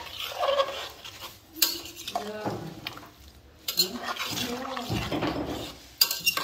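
A spoon stirring and scraping through a pan of plum pickle cooking with jaggery, with a few sharp clinks against the pan.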